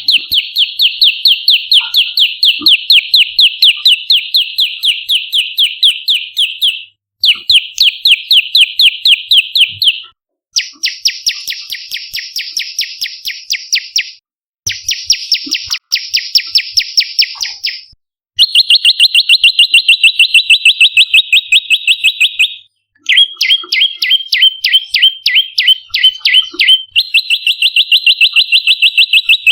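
Prenjak lumut, a small Indonesian warbler, singing its rapid, loud trill of repeated high notes in runs of several seconds with short pauses between them. Some runs are higher and buzzier, and some are lower and clearer.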